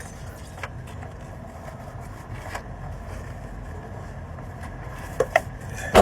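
A steady low rumble with a few faint clicks and knocks from a ratchet levering the belt tensioner pulley to free the serpentine belt. Sharper knocks come right at the end.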